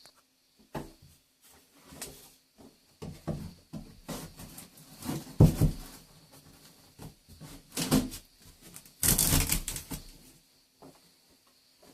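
Scraper blade scraping failed wet-area glue and paper tape off a fibre-cement sheet join, in irregular strokes, with a longer, louder scrape about nine seconds in. The glue has lost its bond to the sheet and comes away in pieces.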